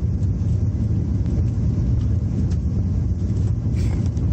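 Steady cabin noise inside a Boeing 737-800 on low approach: an even, deep rumble of engines and rushing air that holds level, with a few faint ticks.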